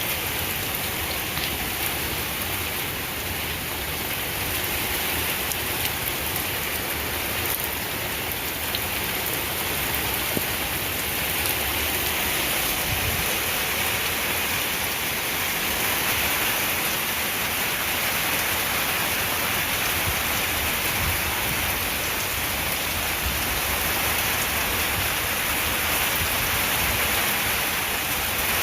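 Thunderstorm rain falling steadily, an even hiss of drops that grows a little louder partway through.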